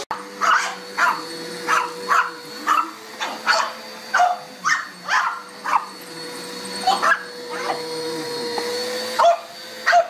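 An upright vacuum cleaner running with a steady motor hum while a dog barks at it over and over, about two barks a second, pausing briefly in the second half.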